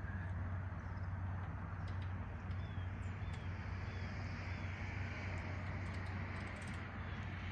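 Farm field ambience at sunrise: a steady low rumble with a bird giving a few short chirps a few seconds in.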